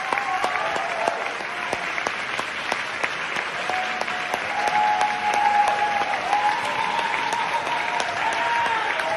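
Audience applauding in a standing ovation: dense clapping, with several drawn-out cheers held over it.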